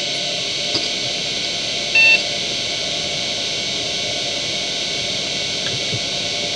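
Seagate ST9145AG 2.5-inch IDE hard drive spinning steadily at full speed with a high whine over hiss, with a few faint head ticks. A short electronic beep sounds about two seconds in.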